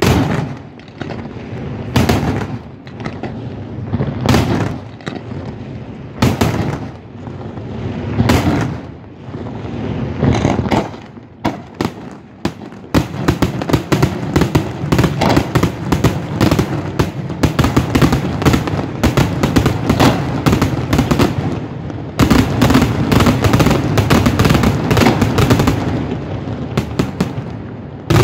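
Daytime smoke fireworks: aerial shells bursting with single loud bangs about every two seconds, then from about halfway through a dense, rapid barrage of bangs and crackles that grows louder near the end.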